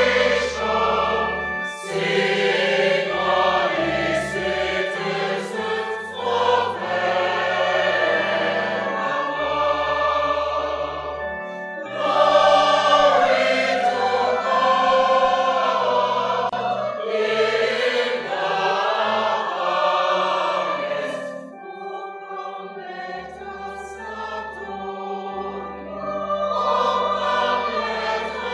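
A choir singing a Christian hymn over sustained instrumental accompaniment. The singing drops to a quieter, thinner passage about three-quarters of the way through, then swells again near the end.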